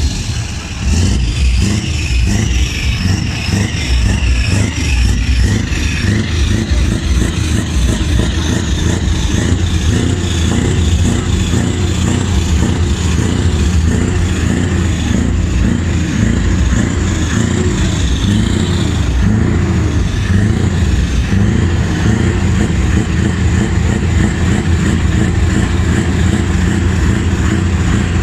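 Loud, steady running of a heavy vehicle engine, with a fast flutter and some wavering higher pitches over it.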